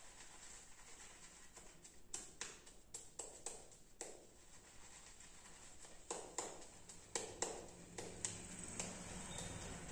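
Razor scraping through lathered underarm hair in short strokes. A string of short, sharp scrapes starts about two seconds in and comes in two bunches, with a pause in the middle.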